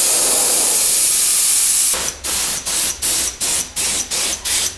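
A loud jet of hissing air or spray, steady at first. About two seconds in it breaks into short bursts, about three a second, each with a faint high squeal.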